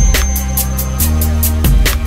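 Electronic dance music with a heavy bass line and a quick, steady hi-hat beat of about four strokes a second.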